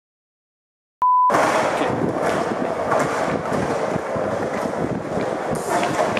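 A second of silence, then a short steady beep, then skateboard wheels rolling on the concrete floor of an underground car park.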